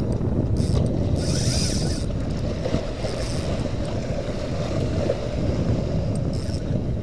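Spinning reel being cranked steadily to bring in a hooked fish, its gears whirring and clicking, over a steady low rumble of wind and water.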